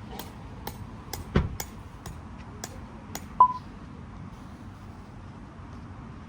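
A run of light, sharp clicks about two a second, then a single short, loud electronic beep.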